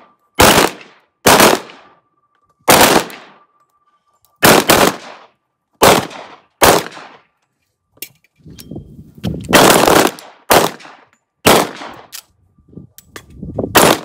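Pistol shots from several shooters firing single shots one-handed in untimed slow fire: about a dozen sharp reports at uneven spacing of roughly one to two seconds, each trailing off in a short echo. Near the end a few shots come closer together.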